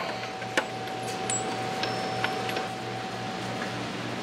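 A few light metallic clinks of steel sockets being moved about in a toolbox drawer, over a steady background hum.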